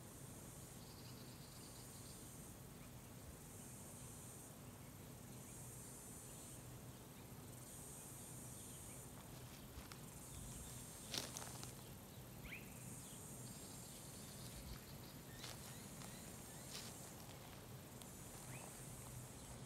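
Faint high-pitched insect chirring in regular pulses of about a second, coming roughly every two seconds, with a sharp click about halfway through.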